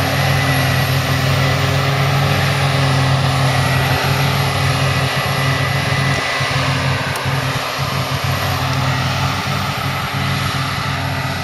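Heavy diesel harvesting machinery running steadily at working speed, with a steady high-pitched whine over the engine.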